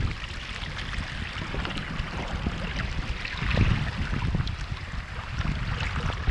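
Water rushing and splashing along the hull of a sailing canoe under way in choppy water, with wind buffeting the microphone in gusts, strongest a little past the middle and again near the end.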